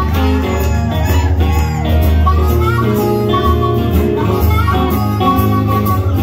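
Live blues band with an amplified harmonica solo, the harp cupped against a handheld microphone and playing held and bent notes over guitar backing and a low bass line.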